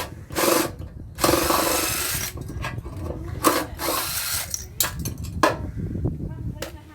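Power drill-driver run in short bursts, the longest about a second, undoing screws.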